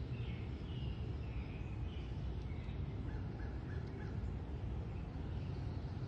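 Outdoor birdsong: birds calling in short phrases, with four quick short notes a little past three seconds in, over a steady low rumble.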